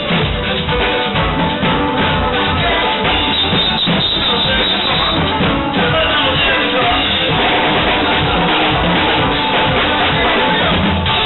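Live upbeat band music with electric guitar and a steady drum beat.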